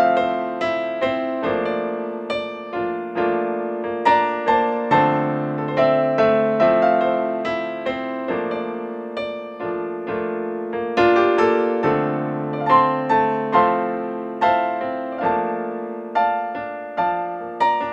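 Solo digital piano playing a melody over held low notes and chords, with a new note or chord about every half second.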